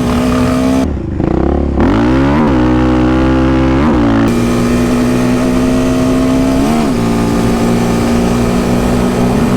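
Yamaha Raptor 700 sport quad's engine running hard at high revs, loud and steady. Its pitch dips briefly and climbs back up four times as the rider shifts through the gears.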